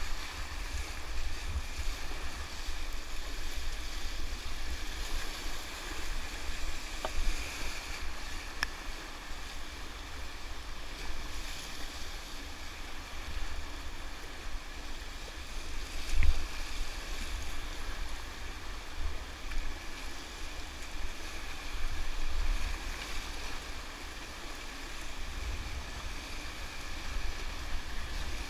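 Whitewater river rushing steadily, with low, uneven rumbles of wind buffeting the microphone and one louder thump about sixteen seconds in.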